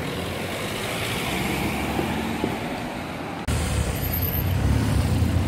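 Road traffic noise: a steady background of passing vehicles, which changes abruptly about three and a half seconds in to a louder, deeper rumble.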